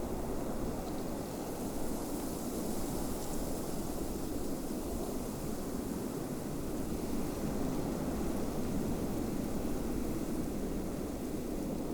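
Steady snowstorm wind, a low, even rush with a faint hiss above it.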